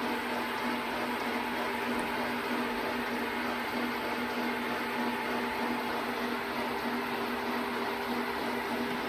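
Hembrug DR1-LS metalworking lathe running steadily, its 2.5 hp three-phase motor and geared headstock giving an even hum with a few held tones over a hiss.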